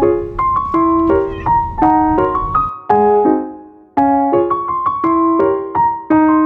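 Background music: a light keyboard melody of short, quickly fading piano-like notes, the same phrase repeating about every four seconds.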